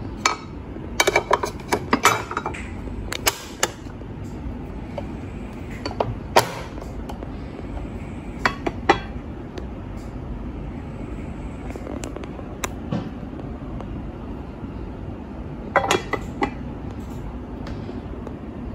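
Removable non-stick metal plates of a waffle maker being handled: sharp clacks and clinks as the plates are lifted out and set against the housing. There is a flurry of them in the first few seconds, single knocks around six and nine seconds in, and another short cluster near the end.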